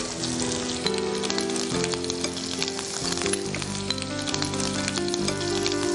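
Hot tempering oil with fenugreek, mustard seeds, cumin and ginger sizzling and crackling in a frying pan as the yogurt-and-gram-flour kadhi batter is poured in and whisked. Soft background music of held notes plays underneath.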